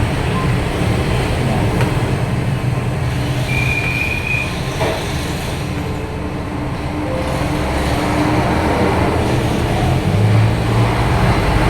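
Steady low rumble of passing road traffic, with a brief high squeak about four seconds in.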